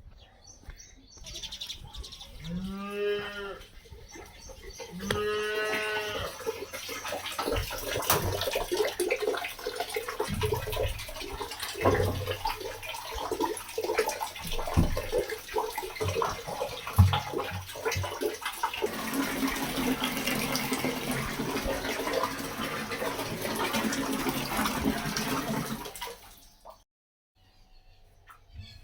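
Cattle mooing twice, two calls each about a second long that rise and fall in pitch, followed by a long stretch of knocking and rustling noise that cuts off abruptly near the end.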